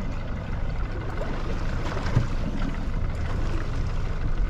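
Fishing boat at sea: a steady low rumble of the boat's engine, mixed with wind and water noise.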